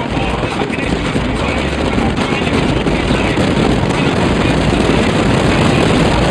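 Steady rush of wind and road noise from a car driving at speed, with a heavy low buffeting.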